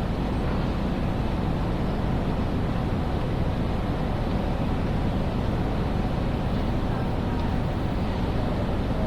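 Steady ambience of a large railway station hall: a low rumble and hum with indistinct chatter of many people.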